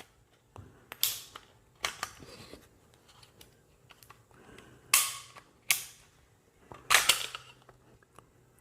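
Walther PDP Pro-E pistol being handled and taken down to reach its recoil spring and guide rod: a string of separate sharp clicks and clacks of its parts. The loudest come about one, five and seven seconds in, each with a brief scrape.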